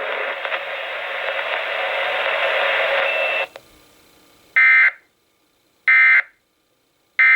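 Radio hiss, then three short, loud bursts of Emergency Alert System end-of-message data tones, about 1.3 s apart, marking the end of the alert.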